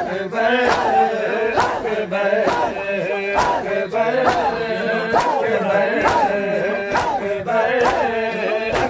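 Men's voices chanting a Punjabi noha in unison, with a steady beat of sharp slaps a little more than once a second from hands striking chests in matam.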